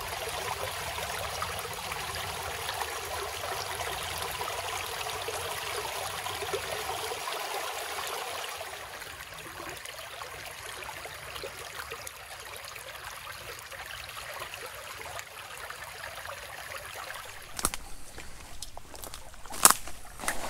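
Shallow forest creek trickling over pebbles and stones: a steady rush of running water that drops somewhat in level about eight seconds in. Near the end come a few sharp knocks, the loudest about a second before the end.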